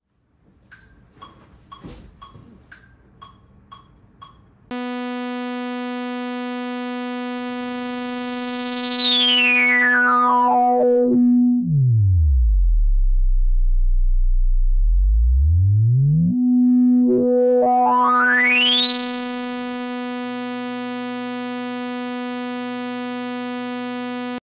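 Synthesizer holding one sawtooth note with its filter resonance fully up. The cutoff is swept slowly down, leaving a whistling resonant peak that falls through the harmonics to a low rumble, then swept back up to fully open. A few faint clicks come before the note starts about five seconds in.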